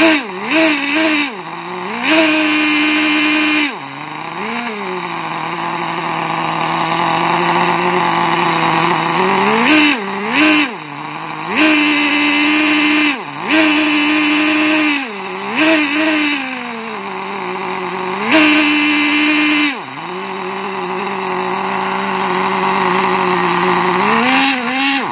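Small two-stroke nitro model engine running fast with no propeller, a high buzzing note whose revs dip and climb back again and again while it is adjusted by hand. It cuts off suddenly at the end.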